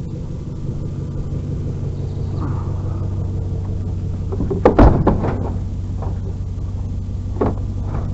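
Truck engine idling steadily, with a loud thump about halfway through and a smaller knock near the end.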